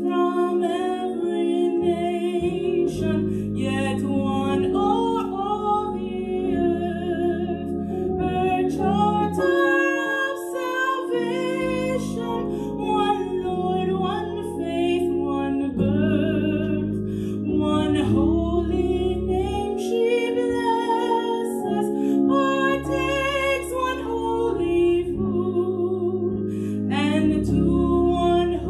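A woman singing a hymn solo at a microphone, her voice wavering with vibrato on held notes, over sustained low accompaniment chords that change every few seconds.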